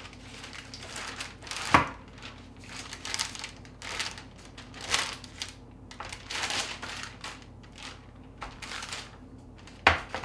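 Marble rolling pin rolling out dough on parchment paper over a metal baking sheet: repeated rustling, crinkling strokes, about one a second, with a sharp knock about two seconds in and another near the end.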